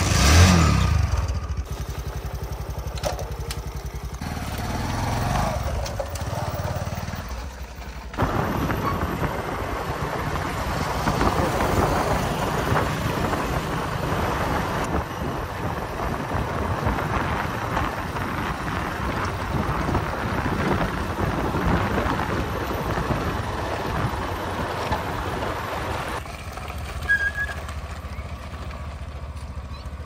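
Diesel engine of a JCB 3DX backhoe loader running, revving up harder about eight seconds in, then easing back a few seconds before the end.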